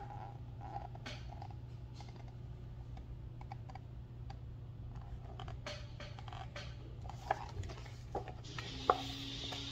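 Pages of a picture book being turned and handled: scattered soft clicks and paper rustles over a low steady hum, with a hiss coming in near the end.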